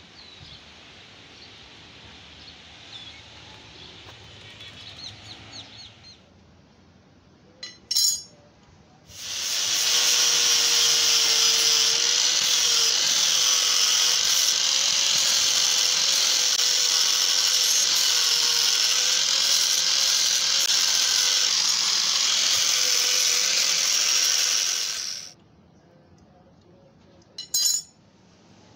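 Electric angle grinder running, its abrasive disc grinding rust off a flat steel bar: a loud steady whine that starts about nine seconds in and stops sharply about sixteen seconds later. A short sharp knock comes just before the grinder starts and another near the end.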